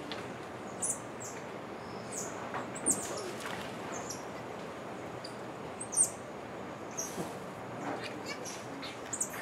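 Short, high-pitched chirping calls scattered through, over a steady background hiss, with a brief sharp knock about six seconds in.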